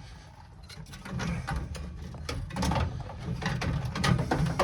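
Irregular metallic knocks, clicks and scrapes as the radiator is lifted out of the engine bay, catching against the engine fan at the bottom.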